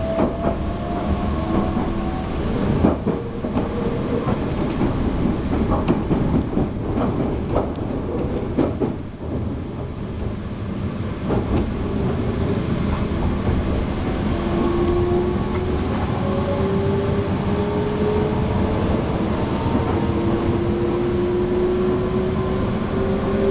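Meitetsu 3150 series electric train running, heard from inside the car: a steady rumble of wheels on rail with a few sharp clicks over rail joints. Over it is the whine of the inverter-driven traction motors, which rises steadily in pitch through the second half as the train picks up speed.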